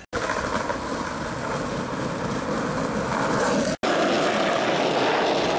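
Steady rolling noise of wheels on pavement, with wind on the microphone, as the camera moves along. It cuts out for a moment just before four seconds in and then carries on.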